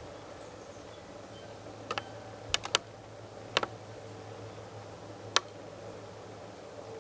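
About half a dozen sharp clicks, a pair close together, then two more, then two single ones, over a faint steady hum.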